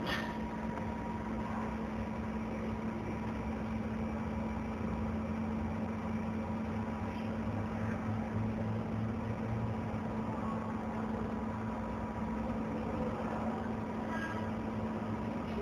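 Steady machine hum from a running CO2 laser marking machine and its fans: a low drone with a steady mid tone and a faint higher whine, unbroken throughout.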